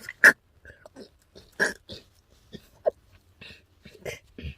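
Frog making short hiccup-like calls: a run of abrupt gulps at uneven intervals, the loudest one just after the start.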